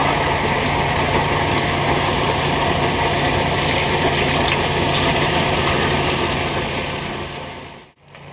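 Vortxrex dryland dredge running steadily: an engine drone under the rushing hiss of water and gravel drawn through the suction nozzle. It fades out near the end.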